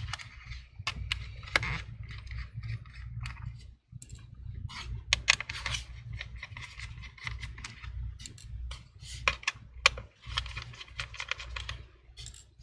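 Torx T5 screwdriver turning out the small screws of an Asus Zenbook Q420V's bottom cover: irregular light clicks and scratchy ticks of the bit in the screw heads, with a low rumble of the laptop being handled.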